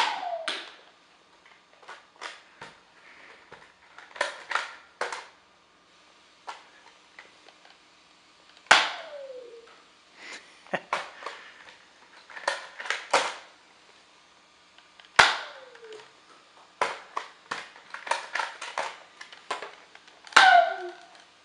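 Nerf dart gun fired four times, several seconds apart; each pop is followed by a falling tone, the Doppler return of the dart flying away as heard from an old X-band police Doppler radar gun played through a stereo system. Scattered clicks and clatter come between the shots.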